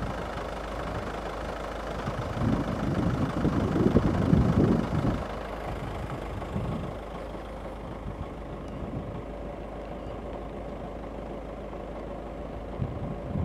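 A motor vehicle engine running steadily, with low rumbling swells about three seconds in and again near the end.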